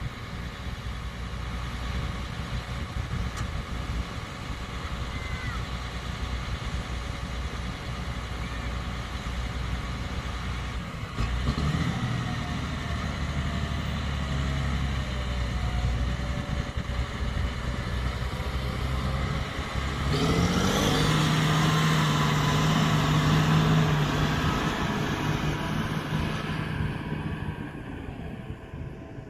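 Large farm machine's diesel engine running steadily under load. It revs up about a third of the way in and again about two thirds in, then dies away near the end.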